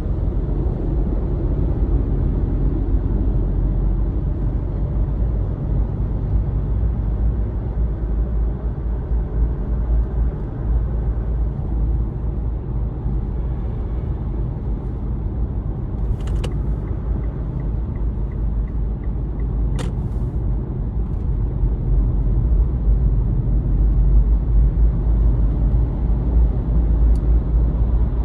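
Steady low rumble of a moving car heard from inside the cabin: engine and road noise. About halfway through come two sharp clicks a few seconds apart, with faint, evenly spaced ticking between them.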